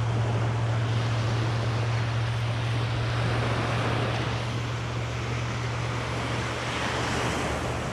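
Surf washing onto a beach with wind on the microphone: an even hiss with a steady low hum underneath.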